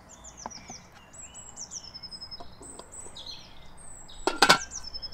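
Wild birds singing, repeated high chirps that drop quickly in pitch. A few light knocks of handling early on, and about four and a half seconds in a loud, briefly ringing metal clatter as the Omnia oven's lid is set onto its aluminium pan.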